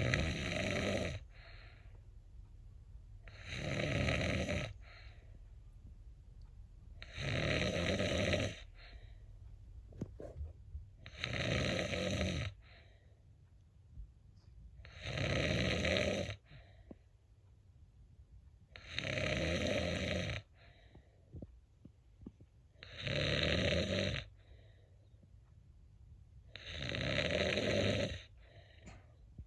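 Cat snoring, eight even snores about every four seconds, each lasting over a second.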